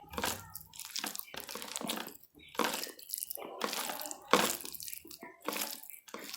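Wet, irregular eating sounds of rice with aloo baingan (potato and aubergine) curry: short squelches and smacks separated by small gaps.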